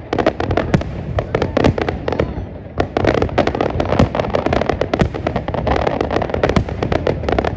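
Aerial fireworks going off: many overlapping sharp bangs and crackles, several a second, over a steady low rumble.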